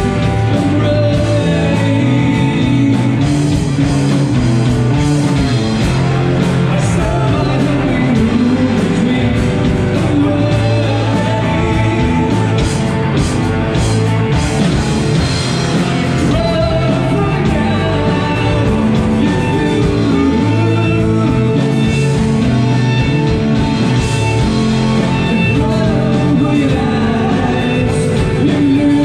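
Live rock band playing at full volume: electric guitars, bass and drums, with a lead vocalist singing over them.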